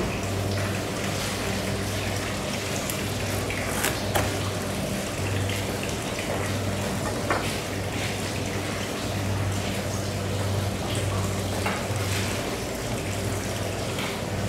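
Steady kitchen background noise with a low hum that comes and goes, and a few light knocks as a block of bluefin tuna and long knives are handled on a wooden cutting board.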